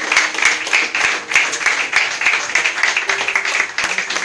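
A congregation applauding, many hands clapping together.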